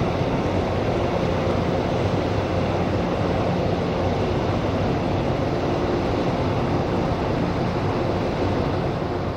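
Steady low engine drone of a Japan Coast Guard 1000-ton patrol vessel passing close by, with water and wind noise mixed in.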